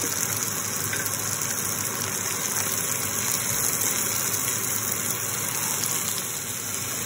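Steady sizzling of chopped onion, capsicum and tomato frying in butter and oil in a kadai.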